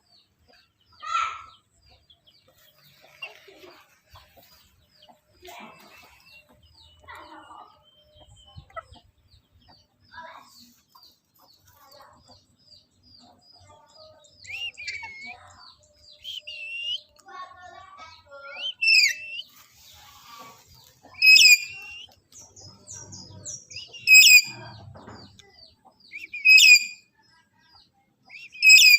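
Black-capped lory calling: softer chattering calls over a fast run of high chirps in the first half, then loud, shrill squawks about every two to three seconds.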